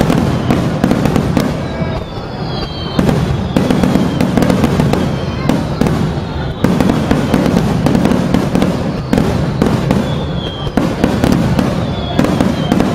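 Aerial fireworks shells bursting in quick succession, a dense run of sharp bangs over a continuous low rumble, with a few thin whistling tones sliding through it.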